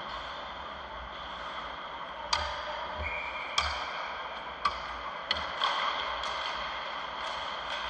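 Ice hockey rink ambience: a steady rush of rink noise with about six sharp clacks of sticks and puck echoing through the arena, coming in the middle of the stretch.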